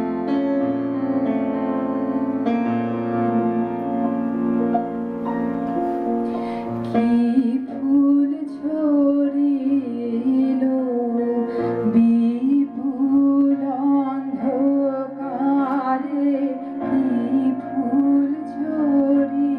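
Yamaha PSR-S970 electronic keyboard playing sustained chords. About seven seconds in, a woman starts singing a slow melody over it.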